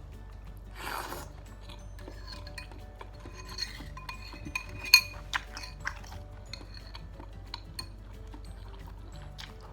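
Metal spoon and fork clinking and scraping against a bowl while eating noodles and meatballs in broth, in a run of sharp ringing taps, with a short slurp about a second in.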